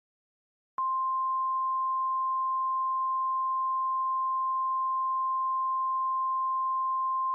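A single steady electronic alert tone, the 1050 Hz weather-radio warning tone used in emergency alert broadcasts, switching on abruptly about a second in and holding at one even pitch and level.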